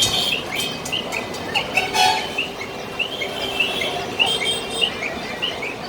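Small birds chirping repeatedly in short, quick notes over a steady background hum, with a brief louder sound about two seconds in.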